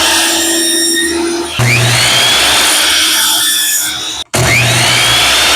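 Power saw cutting wood flush. Its motor starts abruptly twice, each time with a high whine that rises and then holds steady as it cuts.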